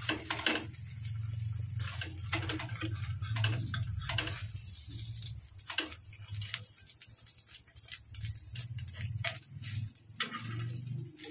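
Egg-dipped bread slices frying in oil in a frying pan, a steady sizzle, with a spatula scraping and tapping the pan many times as the slices are pressed and turned. A low steady hum runs underneath.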